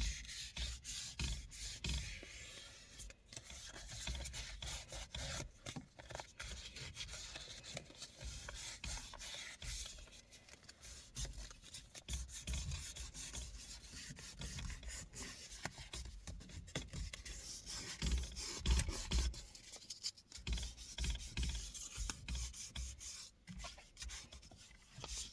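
Sandpaper rubbed by hand over the worn leather of a car steering wheel, a dry scratchy hiss in repeated back-and-forth strokes. The leather is being sanded down before it is recoloured.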